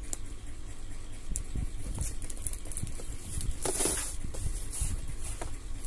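Hands handling and turning a cardboard model-kit box, with rustling, rubbing and small clicks. A louder rustle comes a little past the middle, over a low rumble.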